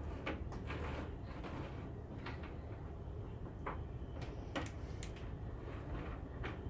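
Tangled chainsaw chain being worked apart by hand: irregular small clicks and scrapes of the steel links sliding over and unlocking from each other, over a steady low background hum.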